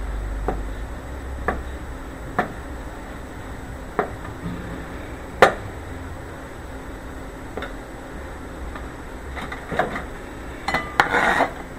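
Kitchen knife chopping a hard-boiled egg on a cutting board: single knocks of the blade on the board a second or two apart, coming quicker near the end.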